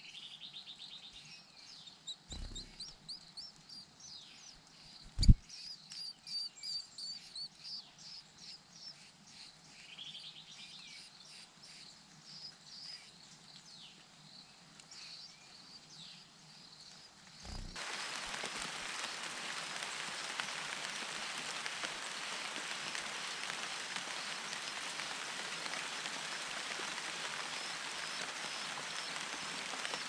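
Grey-breasted prinias giving quick, high chirping calls at the nest, with a dull thump about two and a half seconds in and a louder one about five seconds in. A little past halfway, steady rain hiss suddenly takes over, with faint chirps still heard through it.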